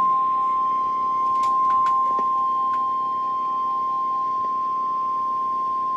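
NOAA Weather Radio warning alarm tone: one steady high tone near 1 kHz, the 1050 Hz alert that signals a warning message is about to follow. It is heard through a weather-radio receiver, with a fainter beeping tone underneath that stops about two-thirds of the way through and a few faint clicks of static.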